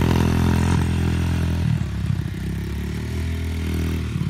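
Kawasaki KFX90 quad's single-cylinder four-stroke engine, bored out to 125cc, running under throttle while ridden. About a second and a half in, the engine note drops lower and turns uneven as it eases off.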